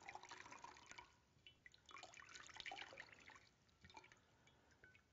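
Faint sound of water poured from a ceramic pitcher over cupped hands, splashing and dripping into a ceramic washbasin. It comes in two spells of trickling, followed by a few last drips near the end.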